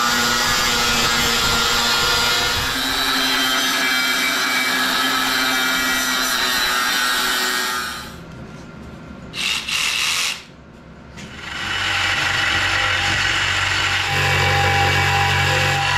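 Metabo angle grinder cutting through 4-inch square steel tubing, a steady high-pitched grinding, until about halfway through. After a short quieter gap with two brief loud sounds, a cordless power tool starts up and runs steadily with a low hum, working on steel tubing.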